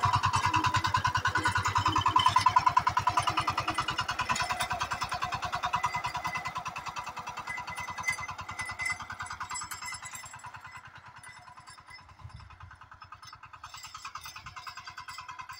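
Engine of a walk-behind power weeder/cultivator running steadily with an even, rapid pulsing beat as it works between crop rows. It grows fainter over the second half as the machine moves away.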